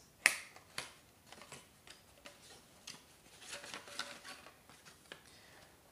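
Small cardboard box being opened by hand: a sharp click as the flap comes free, a second click soon after, then light ticks and rustling as a clear plastic display case is slid out of the box.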